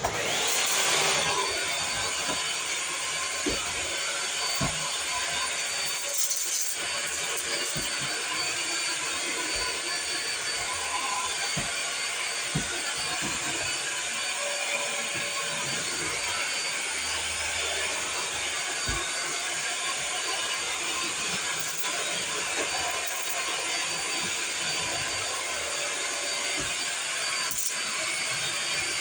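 Vacuum cleaner switched on and running steadily with a loud, even whoosh, with scattered light knocks as it is pushed about.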